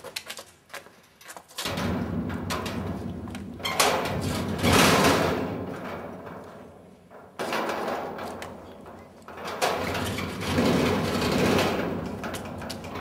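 Heavy sheet-metal double gate being pushed shut and fastened: a long scraping, rattling noise in two stretches, the first starting about a second and a half in and the second about halfway through.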